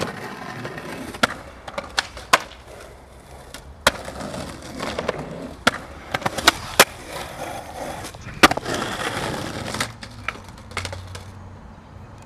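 Skateboard on Bones Street Tech Formula urethane wheels rolling over concrete, broken by about ten sharp clacks of tail pops and board landings. The rolling fades near the end, leaving a low hum.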